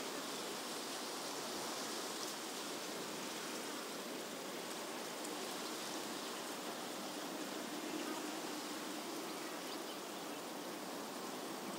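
Steady outdoor background ambience: an even rushing hiss with no distinct events.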